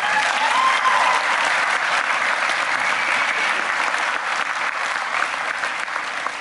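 Large audience applauding in a hall, joined by the panelists; the clapping starts suddenly and holds steady.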